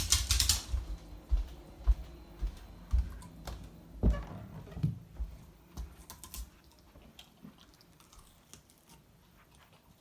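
A dog moving about a kitchen: scattered light clicks and knocks, with a dull thump about four seconds in, thinning out toward the end.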